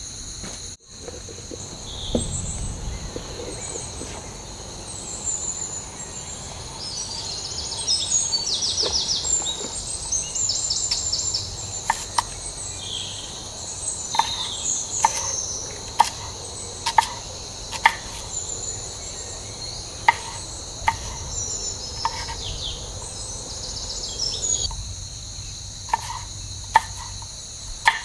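A steady high-pitched insect chorus of crickets, with a few brief trills in the middle. From about halfway, a large kitchen knife chops onions on a wooden cutting board in sharp single knocks about once a second, louder than the insects.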